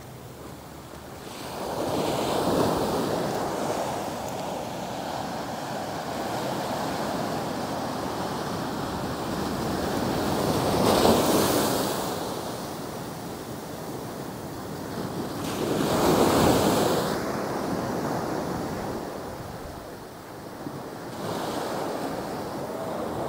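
Small surf waves breaking and washing up onto the sand, the rush of water swelling and fading several times, loudest about 11 and 16 seconds in.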